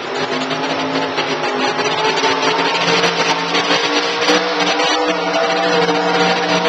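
A loud, steady machine drone: a hum made of several steady tones over a noisy hiss, rising slightly in level over the first couple of seconds and then holding.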